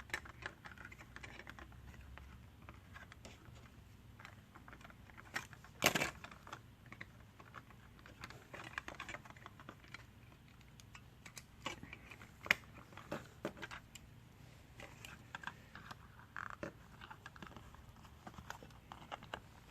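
Plastic model kit parts being handled and fitted together: scattered light clicks and taps, with a louder click about six seconds in and another about twelve seconds in.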